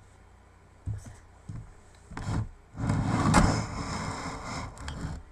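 Close contact noise at the microphone: a few light knocks, then a rough rubbing rush lasting about two seconds, starting around three seconds in.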